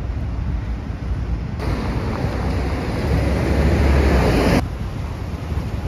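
Street traffic with a steady low rumble. A bus passes close by from about a second and a half in, its noise building and then cutting off abruptly after about four and a half seconds.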